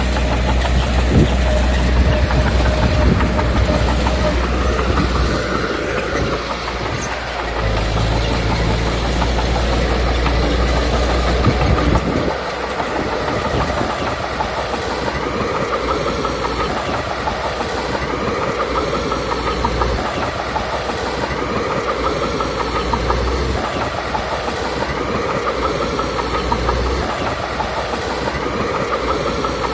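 Small Komatsu D21P crawler bulldozer working: its diesel engine runs under load while its steel tracks clank and rattle. The engine's low rumble eases about twelve seconds in.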